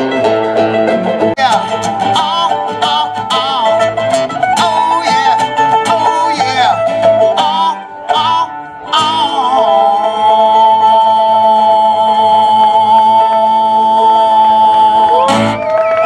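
Live country song on acoustic guitar and mandolin with a man singing. About ten seconds in he holds one long note for some five seconds, which ends in a short upward slide.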